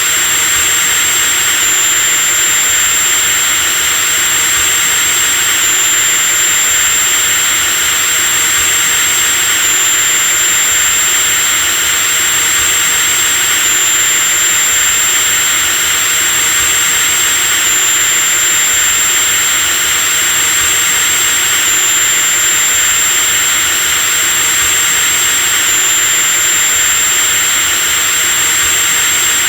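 Electric drill motor running continuously at a steady speed, a high whine over a rushing motor hiss. There is a slight hitch in the pitch about every four seconds.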